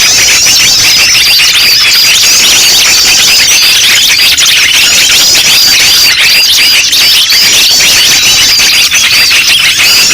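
Loud, dense chorus of many small birds chirping at once: overlapping high chirps with no let-up. This is a 'noisy birds' lure track, played to draw in all kinds of small birds.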